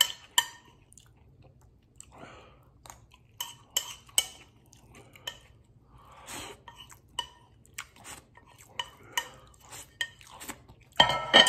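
A metal fork clinks and scrapes on a plate in a string of sharp, ringing clicks, with a man chewing mouthfuls of burrito between them. Near the end there is a loud breathy vocal sound.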